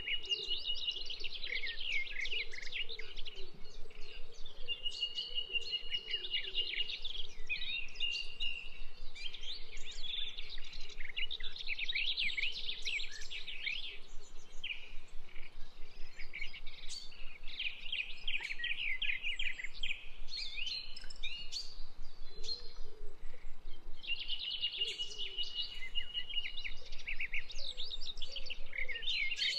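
Several birds chirping and calling in a busy, overlapping chorus. A steady high trill of about two seconds comes in three times: at the start, about a fifth of the way in, and near the end.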